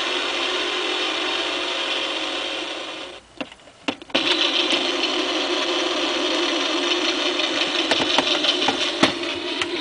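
Recorded tractor engine sounds played through the John Deere clock's small built-in speaker, thin with no bass. The engine sound cuts out about three seconds in and a couple of clicks follow. About a second later another tractor engine recording starts running.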